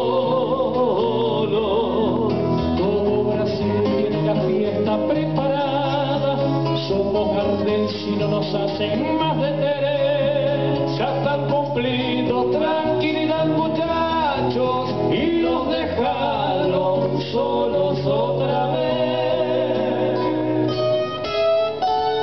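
Live band music: acoustic guitars strumming with male voices singing over a steady bass line, amplified through the stage sound system.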